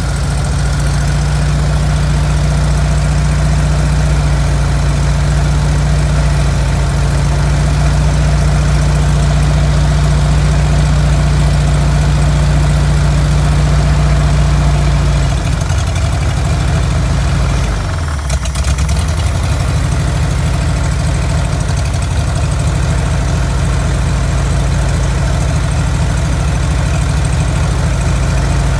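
Air-cooled flat-four engine of a 1972 VW Super Beetle running steadily after being revived from years of sitting. About halfway through, its speed falls and wavers for a few seconds, dipping near the stall, then settles back to a steady idle.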